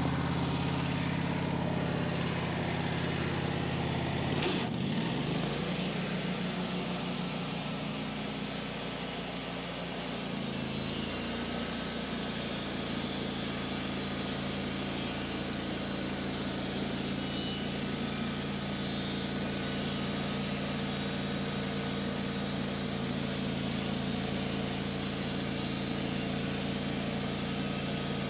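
Engine of a Wood-Mizer LT15 wide portable sawmill running steadily, its note shifting about ten seconds in. A single sharp knock about four and a half seconds in.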